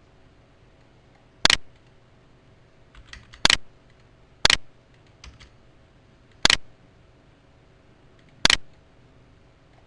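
Computer mouse clicking: five sharp single clicks one to two seconds apart, with a few fainter clicks between them, as files and diagram pages are opened on the computer.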